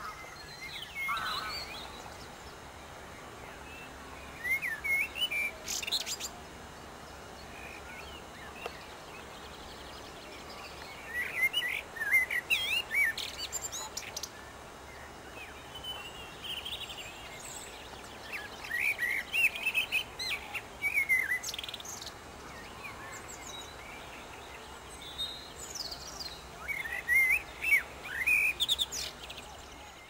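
Male common blackbird singing: short phrases a few seconds apart, with quiet gaps between them.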